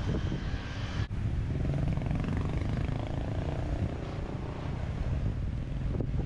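Road traffic going by: cars' engines and tyres on the road, with a low rumble of wind on the microphone. The sound breaks off abruptly about a second in, and a passing vehicle's engine rises and falls in the middle.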